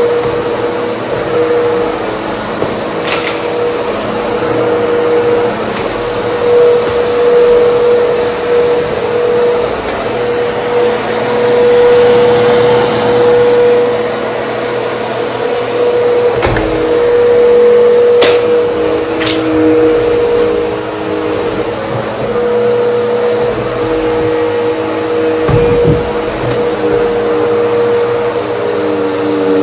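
Bagless upright vacuum cleaner running steadily with a high motor whine as it is pushed back and forth over a rug sucking up fluff, with a few short clicks and knocks along the way.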